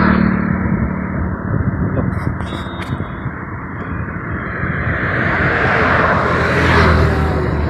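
Road vehicle noise: a steady low engine hum under a haze of road and wind noise, which swells louder toward the end.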